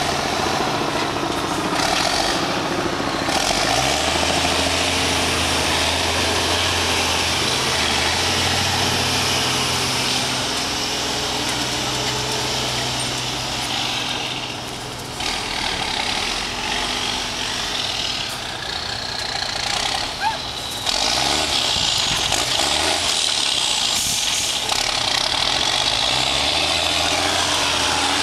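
Trial truck's diesel engine working hard as the truck drives out of a pit and over rough ground, its pitch shifting up and down with the throttle. It eases off briefly about halfway and runs louder again near the end.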